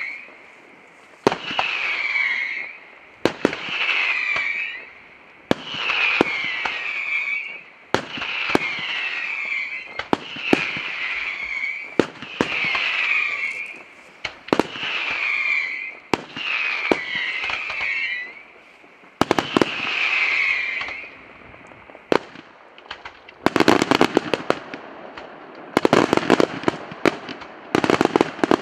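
Daytime fireworks: shells go off about every two seconds, each sharp bang followed by a falling whistle lasting a second or so. From about 23 seconds in, the bangs give way to dense, rapid crackling from clusters of firecracker bursts.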